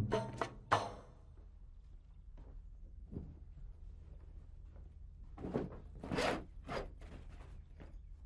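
Percussive music ends in the first second. A few rustles and thunks follow as someone handles and rummages through things in a small room, loudest between about five and seven seconds in.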